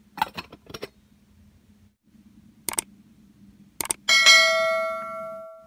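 A few light taps near the start, then mouse-click sounds of an on-screen subscribe animation, followed by a bright notification-bell ding that rings and dies away over about a second and a half.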